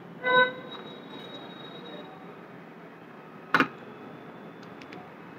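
A person eating by hand at a plate in a quiet room. There is a short hum-like voice sound near the start, then one sharp clink at the plate about three and a half seconds in, with a few faint ticks after it.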